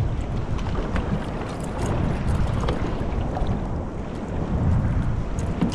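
Wind buffeting the microphone in a steady low rumble, with faint water sounds around a fishing kayak.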